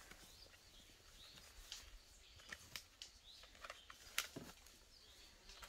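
Near silence outdoors: faint bird chirps now and then, with a few light knocks of split firewood being handled, one sharper click about four seconds in.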